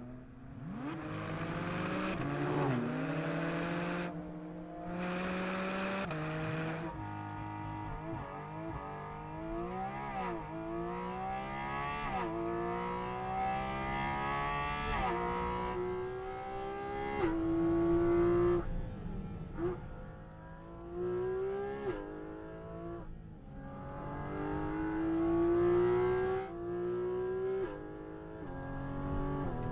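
Porsche Cayman GT4 RS's naturally aspirated 4.0-litre flat-six accelerating hard through the gears. The pitch climbs steadily and then drops sharply at each upshift, many times over, with a few brief lifts of the throttle.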